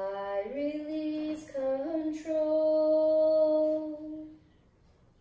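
A woman singing alone, unaccompanied: a slow line of a few notes, the last one held long, breaking off about four seconds in.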